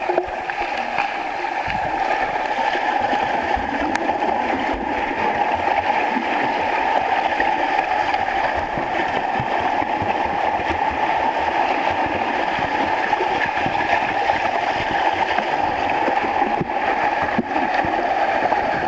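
Continuous rushing, gurgling water noise with no pause.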